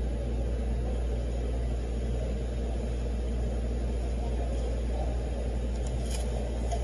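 A steady low hum and rumble with no changes or distinct events.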